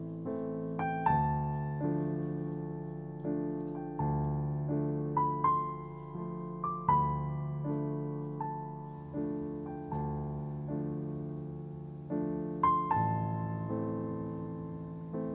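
Slow, gentle solo piano music: single notes and soft chords, each struck and left to ring and fade before the next.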